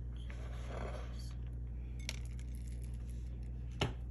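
Dry granola being added to a dish: a soft rustle and rattle in the first second or so, a light click about two seconds in, and a single sharp clink near the end, the loudest sound. A steady low hum runs underneath.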